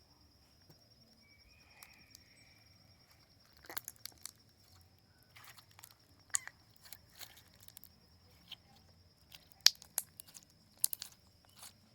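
Crunchy foam-bead slime being stretched and squeezed by hand, crackling and popping in irregular sharp clicks as the beads and little air bubbles in it burst, starting about four seconds in. A steady high-pitched tone runs underneath.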